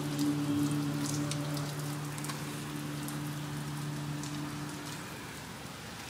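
Heavy rain falling, a steady hiss with sharp ticks of single drops hitting close by. A steady low hum runs underneath and stops about five seconds in.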